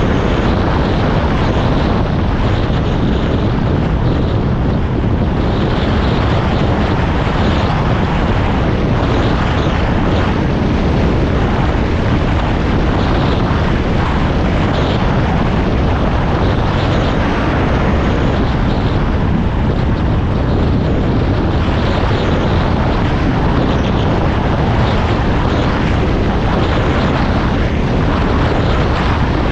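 Steady, unbroken running noise of a moving vehicle, mixed with wind rush on the microphone.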